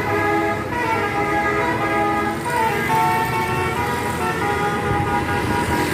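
A bus's basuri musical horn ("telolet" horn) playing a loud tune of stepped notes that change pitch every half second or so, over engine and road noise.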